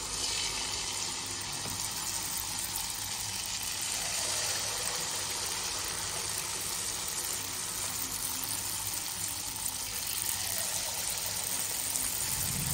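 Wheat-flour and jaggery batter deep-frying in hot oil in a steel pan, giving a steady, even sizzle.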